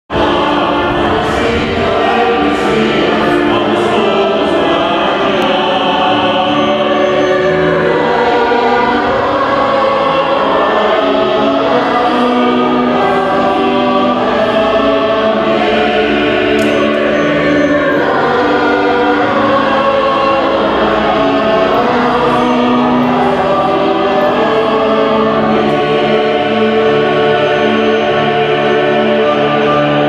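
Gospel choir singing in full chorus, many voices holding chords that change about once a second at a steady, loud level.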